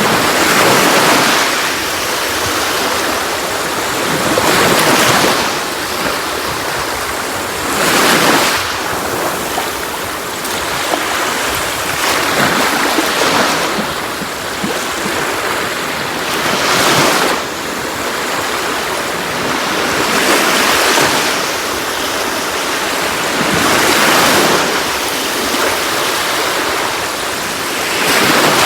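Sea waves breaking on a shore, a steady wash of surf that swells roughly every three to four seconds as each wave comes in.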